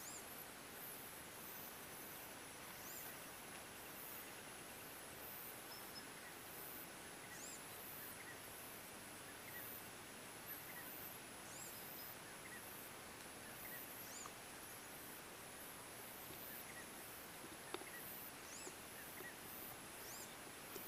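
Faint outdoor ambience: short high-pitched bird calls every three to four seconds over a steady high pulsing, with one small click near the end.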